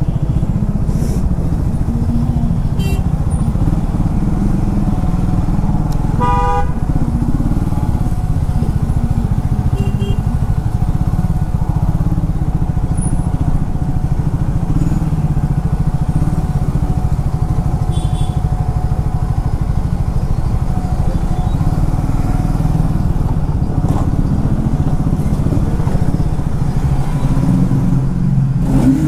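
Triumph Speed 400's single-cylinder engine running steadily on the move, with a vehicle horn sounding briefly about six seconds in.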